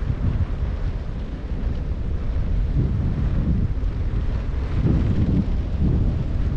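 Wind buffeting the microphone of a kite-lifted camera: a steady low rumble that swells in uneven gusts.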